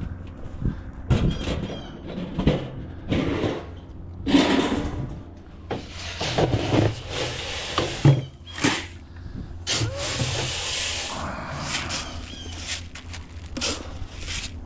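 Poultry calling and scuffling as they go at leftover treats: a string of short, irregular calls and rustles over a steady low hum.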